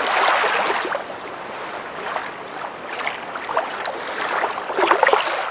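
Steady rush of running water, with short faint chirps and squeaks over it that grow busier near the end.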